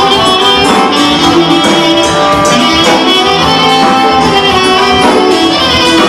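Live band playing lively folk dance music, a saxophone carrying the tune over a steady beat.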